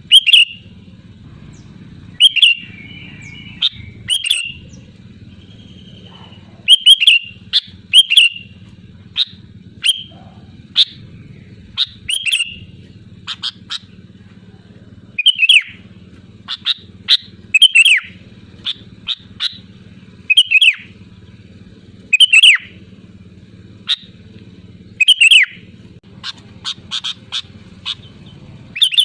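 Sooty-headed bulbul (kutilang) calling loudly and persistently: short, sharp whistled phrases about one every second, with little gaps between them, over a low steady hum.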